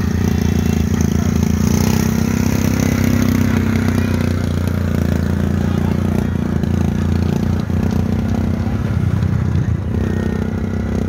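Small vehicle engine running at a steady cruising speed under way, a steady low drone with no clear revving.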